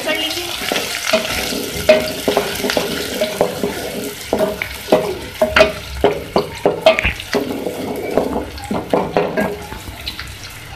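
Chopped onions sizzling in hot oil in a metal pot, stirred with a wooden spoon that scrapes and knocks against the pot again and again.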